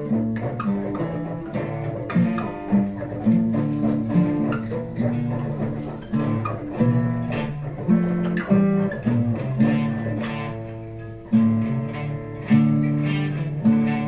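Guitar music: plucked notes and chords, with a short dip just before the final few seconds.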